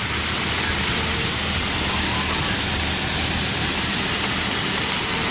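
Steady rushing noise with a low hum from the car wash equipment running in the bays. A short whine sounds twice, about half a second in and near the end, as the pay station's bill acceptor draws in banknotes.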